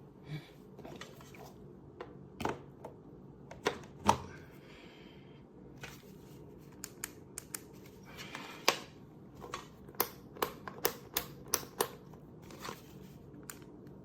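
A scattering of sharp clicks and taps, ending in a quick run of about eight clicks over two seconds near the end.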